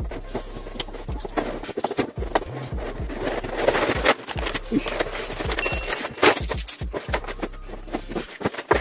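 Clear plastic bags crinkling and cardboard packaging knocking as an action figure's parts are pulled out of their box, in a string of irregular rustles and clicks with a few sharper knocks.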